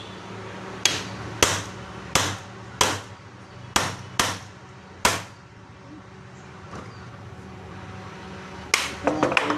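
Sharp hammer blows, struck one at a time about once every half second to second for several seconds, then a quick flurry of lighter taps near the end, typical of knocking on a water pump motor during repair. A faint steady hum runs underneath.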